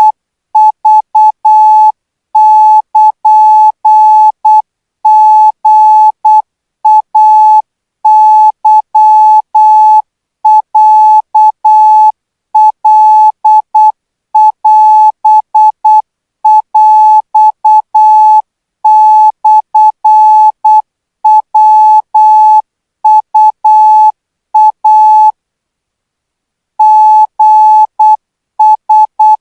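Thai Morse code practice tone sent at 12 words per minute: a single steady-pitched beep keyed on and off in short and long elements, grouped into characters. There is a pause of about a second and a half near the end.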